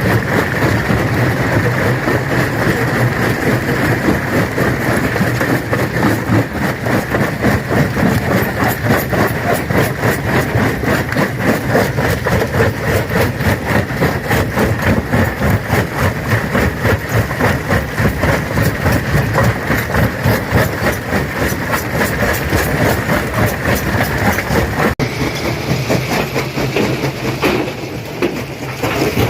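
Stone crusher running under load, a steady heavy machine drone with dense, rapid crunching and knocking of rock being broken. The crunching thins and the sound dips slightly near the end.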